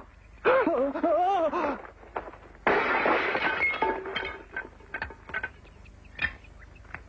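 A wavering pitched wail lasting over a second, then a crash of something breaking and shattering, with scattered clinks and knocks of pieces coming down after it.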